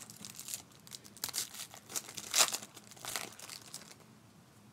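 Thin plastic wrapping from trading-card packs crinkling and tearing in gloved hands: a run of irregular crackles, loudest about two and a half seconds in, thinning out near the end.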